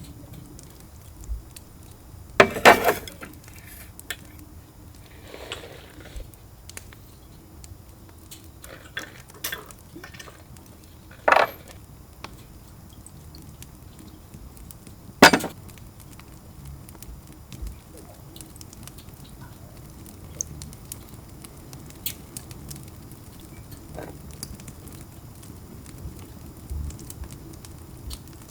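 Dishes and glassware being handled on a camp table: scattered light clinks and knocks, with a few sharper, louder ones spread through.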